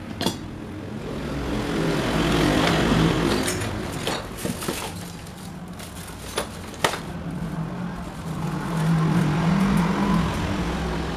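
Passing motor vehicles: engine noise swells and fades twice. A few sharp clicks come near the start and twice a little past halfway.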